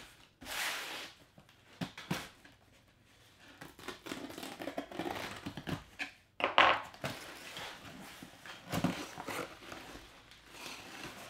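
Cardboard shipping box being opened: packing tape ripped off and cardboard flaps scraping and rustling, in several separate bursts, the loudest about six and a half seconds in.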